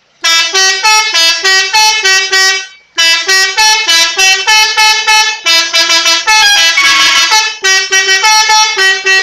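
Telolet horn, a multi-tone musical vehicle horn, playing a loud, fast, repeating melody of short notes, about four a second. It breaks off briefly about three seconds in and then carries on.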